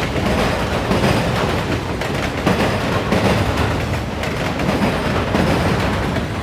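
Auto rack freight train rolling past, its steel wheels clattering and hammering over the rail diamond crossing in a continuous run of knocks.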